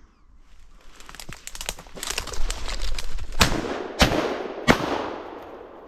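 Brush crackling and rustling, growing louder, then three sharp shotgun reports in quick succession, each with a fading tail: a hunter shooting at a flushed woodcock.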